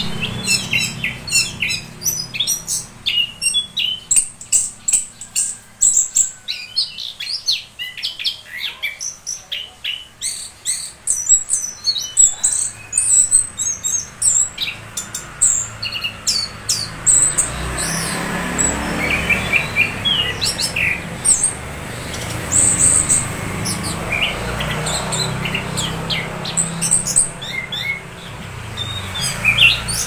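Caged chestnut-capped thrush (anis kembang) singing a fast, continuous run of varied chirping notes, dense through the first half and sparser later. A steady rushing background noise comes up about halfway through.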